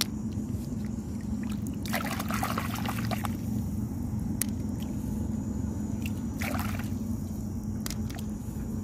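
Shallow seawater splashing and trickling as a hand digs for clams in wet sand, in two louder bursts about two seconds and six and a half seconds in, with a few small clicks. A steady low hum runs underneath.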